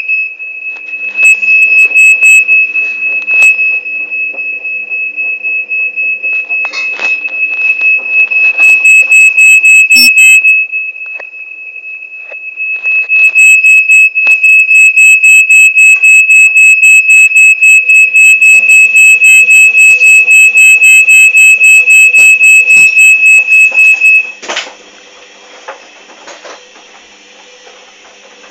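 Loud, high-pitched electronic alarm beeping in a rapid pulsing pattern. It drops away for a couple of seconds in the middle, then resumes and cuts off near the end, leaving faint low sounds.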